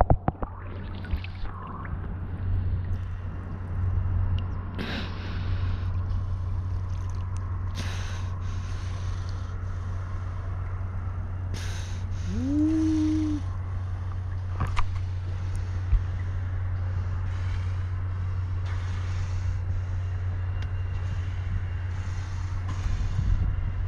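Water sloshing and splashing around a camera held at the surface, in short bursts over a steady low hum, with one short rising call about twelve seconds in.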